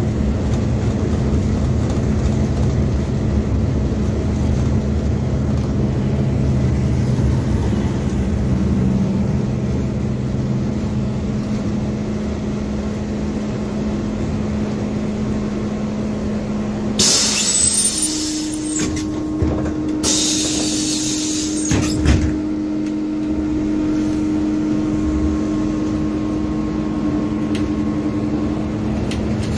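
MAZ 205 city bus running, heard from inside the cabin: the engine drones steadily, then a little past halfway loud hisses of compressed air from the bus's air system come once and then twice more in quick succession, after which the engine holds a steady, higher note.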